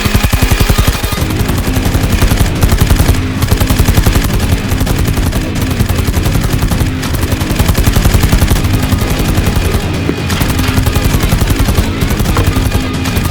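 Continuous rapid automatic fire, many shots a second like machine-gun fire, over a backing music track, with brief dips about a second in and near ten seconds.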